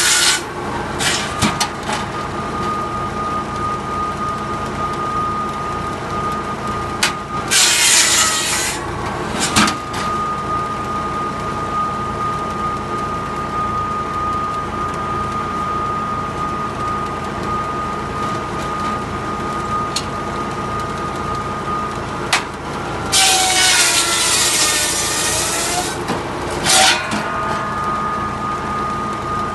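Tractor PTO-driven circular saw bench with a 550 mm blade spinning free with a steady whine over the tractor's running engine. It cuts through logs three times: a cut ending at the start, one about 8 s in, and a longer one from about 23 to 26 s. Each cut is a harsh rasping burst during which the blade's whine drops out. A few sharp knocks of logs and the sliding guard come between cuts.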